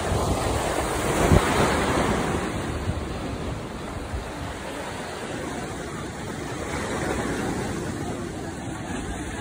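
Sea surf washing and breaking on a rocky shore, with wind buffeting the microphone. It is a steady rushing noise with a louder surge a second or so in.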